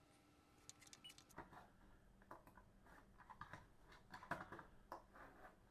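Faint, scattered clicks and small rattles of a computer mouse being clicked and handled while menus are worked, over a quiet room.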